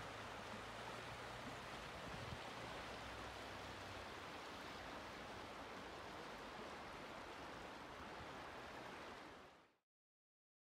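Steady rush of flowing water, with a faint low hum under it for the first few seconds; it fades out to silence near the end.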